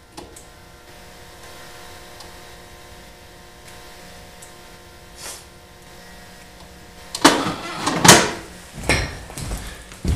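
A faint steady hum of several fixed pitches, then close handling noise near the end: a run of loud knocks, bumps and scrapes as the camera is handled and an infrared thermometer is brought up to it.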